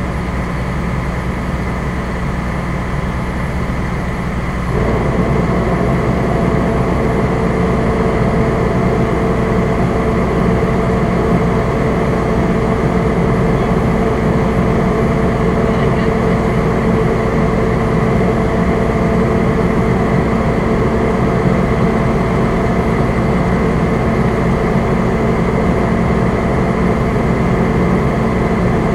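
Fire engine's engine and road noise heard inside the cab, a steady drone. About five seconds in it grows louder and a steady whine joins it, as the truck takes on more speed or load.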